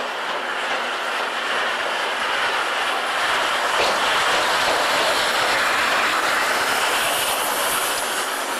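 Steam locomotive C58 363 running slowly past at close range, a steady hiss of steam and rolling noise that grows loudest about midway as the engine passes and eases near the end.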